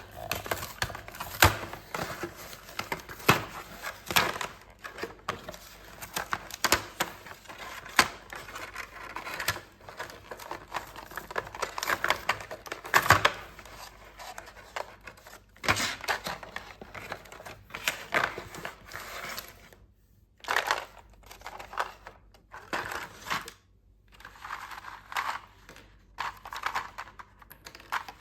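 Plastic toy packaging crinkling and rustling, with many small sharp clicks and taps of small plastic toy pieces being handled, in short irregular bursts.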